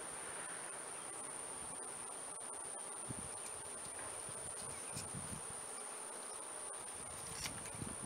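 A steady, high-pitched insect drone, one unbroken tone, over faint outdoor background noise, with a few soft low bumps.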